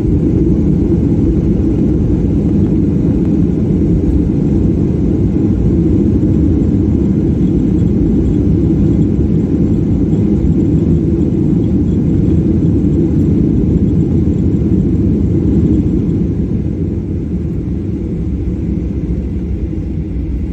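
Cabin noise of a Boeing 737 rolling out on the runway just after touchdown: a loud, steady low rumble of engines and wheels, easing slightly about three quarters of the way through.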